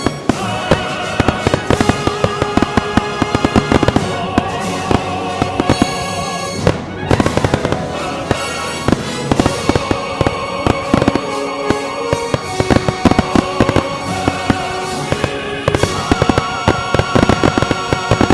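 Fireworks bursting in quick, dense succession, sharp bangs and crackles, over loud music.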